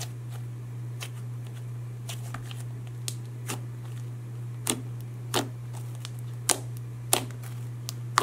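Thick semi-floam slime with foam beads being squeezed and pressed by hand, giving off sharp, irregular bubble pops as trapped air bursts, sparse at first and louder and more frequent about halfway through. A steady low hum runs underneath.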